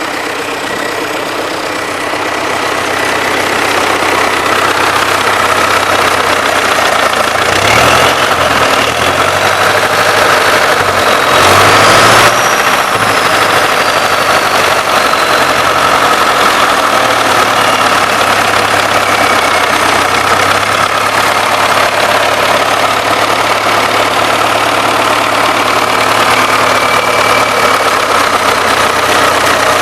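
DT-75M crawler tractor's SMD-18 diesel engine running at low speed with a knock. The owner blames the knock on worn connecting rods or their bearings, though to him it sounds like pistons hitting valves. The engine speed shifts briefly between about eight and twelve seconds in.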